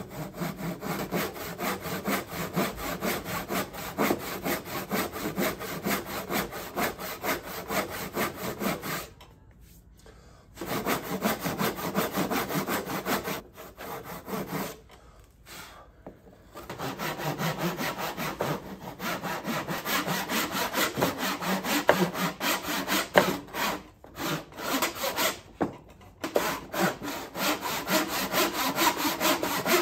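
Hand backsaw cutting walnut against a sawing guide: a steady run of quick rasping strokes, stopping briefly about nine seconds in and again around fifteen and twenty-five seconds.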